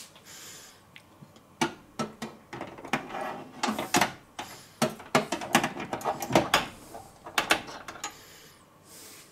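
Metal clicking, knocking and scraping as a rotisserie spit loaded with a chicken is worked into its mounts inside an air fryer oven: a run of irregular knocks starting about a second and a half in.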